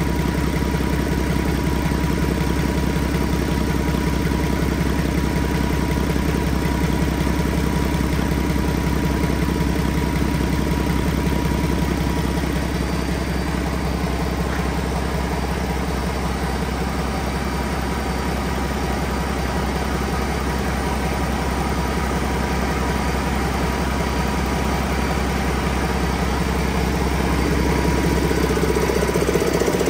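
PACCAR MX-13 inline-six diesel engine idling steadily, a little louder near the end.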